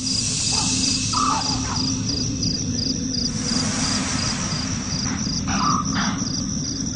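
Night insect chorus: crickets chirping in an even pulse, about three chirps a second, over a steady high insect whine. A soft rushing swell comes in twice, at the start and again about halfway through.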